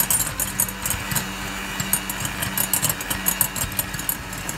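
Electric hand mixer running steadily, its beaters whisking egg whites and sugar into a foam in a glass bowl: a steady motor hum with fast, irregular clicking of the beaters against the glass.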